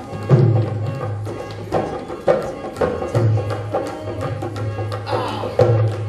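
Folk music with hand-drum beats over a steady low drone.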